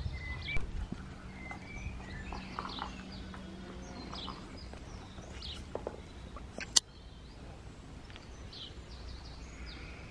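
Outdoor birdsong: scattered short bird chirps and twitters over a low background rumble, with one sharp click about two-thirds of the way through.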